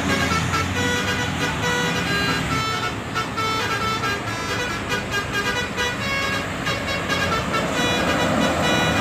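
A bus's basuri telolet horn playing a melody of short notes that step up and down in pitch, over bus engine and traffic noise.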